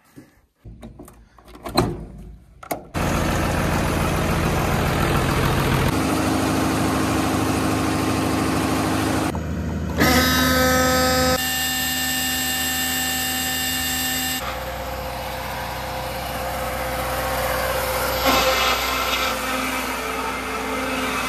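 A diesel generator starts abruptly after a few seconds of knocks and clicks, then runs steadily. About ten seconds in, a steady whine at several pitches joins, and the sound shifts suddenly a few times.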